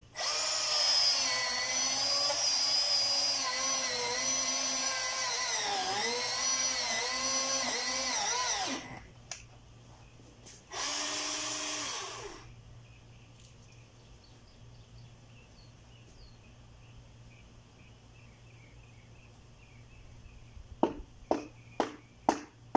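Milwaukee M18 Fuel battery chainsaw running with a steady electric whine whose pitch sags as the chain bites into the palm trunk, then stopping about nine seconds in; a short second burst follows about two seconds later. Near the end come sharp knocks about twice a second.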